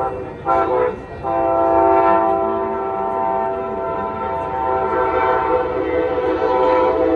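Passenger train's multi-note air horn sounding. One blast ends just after the start, a short blast follows, and then a long blast is held.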